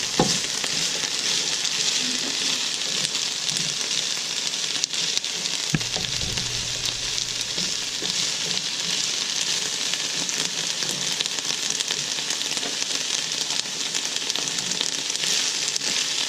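Bell peppers sautéing in a pan on medium heat: a steady sizzle, with two brief knocks, one just after the start and one about six seconds in.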